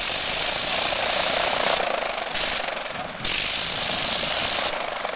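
Rotary engine of a First World War-type biplane running on the ground. The sound drops back twice and picks up again.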